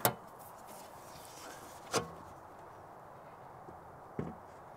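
Three sharp metal clicks and knocks, about two seconds apart and the first the loudest, from an aluminium side box's lid being unlatched and lifted off so it can be slotted in as a shelf.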